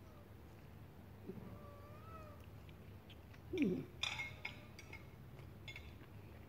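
A single short animal call falling in pitch, about three and a half seconds in, followed at once by a few light clinks. Otherwise faint background.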